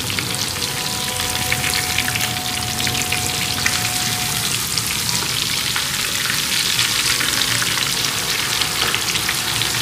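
Spice-coated fish fillets sizzling and crackling steadily in hot ghee in a heavy copper pot, while a metal spatula turns the pieces over once they have browned on one side.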